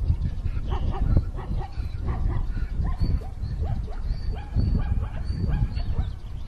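An animal yelping: short, high, falling yips, about two or three a second, over a steady low rumble.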